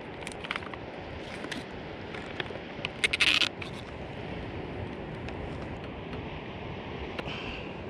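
Campfire crackling in scattered small ticks over a steady rushing background, with a brief loud scrape about three seconds in.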